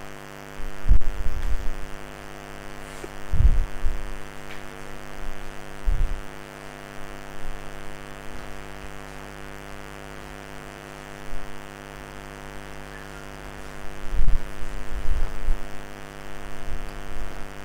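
Steady electrical hum, a stack of even tones, broken by a few dull low thumps scattered through it, several of them bunched near the end.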